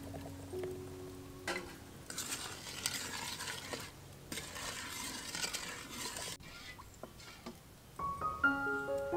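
Soft background music with piano notes. From about two seconds in, a stretch of kitchen work noise takes over, stirring or scraping in a bowl, with a short break, and cuts off abruptly about six seconds in. The piano notes then return.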